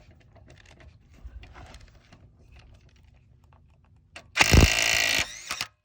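DeWalt DCF911 cordless 1/2-inch impact wrench hammering in a loud burst of about a second, about four seconds in, breaking loose a truck lug nut torqued to about 135 ft-lb, then briefly running on more quietly. Faint handling clicks come before it.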